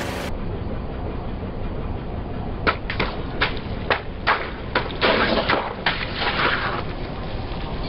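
A car tyre crushing a soft, liquid-filled object over a low, steady engine rumble. A run of sharp cracks and pops starts a few seconds in, then a denser splattering crackle as the contents burst out and splash.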